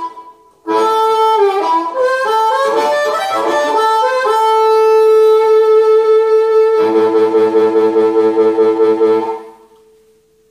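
Harmonica in D played cupped tight around a handheld harmonica microphone and amplified: a short blues phrase of bent, sliding notes, then one long held note that takes on a fast warble from about seven seconds in and fades out near the end.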